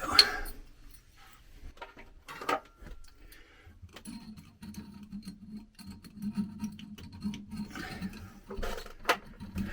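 Scattered small clicks, taps and scrapes of a screwdriver and copper wire being worked at the terminal screw of a ceiling light receptacle, with a sharper click about two and a half seconds in and again near the end.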